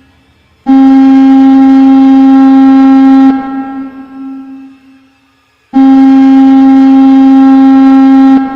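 Two long, loud blasts of a low, buzzy alarm horn tone from a mock emergency alert broadcast, each lasting about two and a half seconds, stopping abruptly and leaving a long fading echo.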